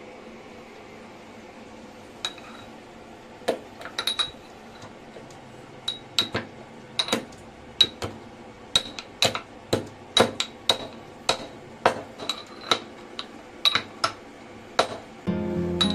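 A metal cooking utensil clinking against an iron kadai: sharp, ringing metal-on-metal clinks, a few scattered ones at first, then about one or two a second. Music comes in near the end.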